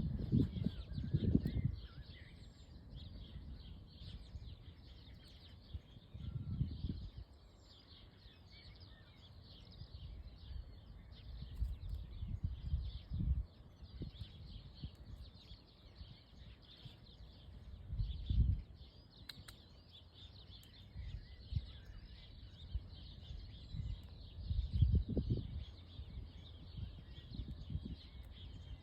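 Outdoor bird ambience: continuous dense, high chirping of small birds, with low rumbles swelling up every few seconds.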